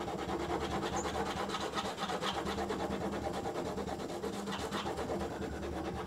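Wax crayon rubbed hard back and forth across paper in quick, continuous shading strokes: a steady dry scratching.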